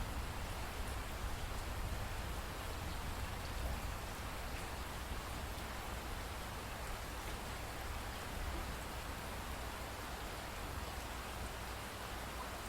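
Steady rainfall, an even hiss with a deep low rumble beneath and faint scattered drop ticks.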